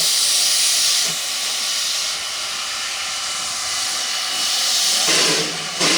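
Steam hissing steadily from the Bridgton and Saco River #7 steam locomotive, with two louder, fuller blasts of steam near the end.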